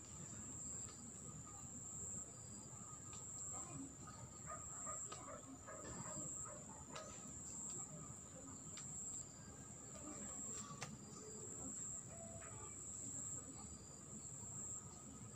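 Insects chirring in one steady, high-pitched, unbroken tone, with a few faint clicks.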